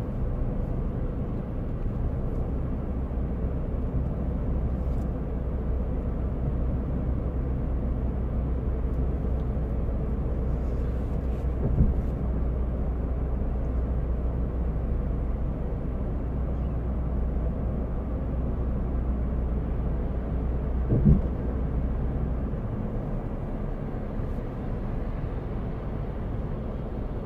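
Steady low road and engine noise heard inside a moving car's cabin, with two short thumps, the second one louder. The deepest part of the drone eases off near the end.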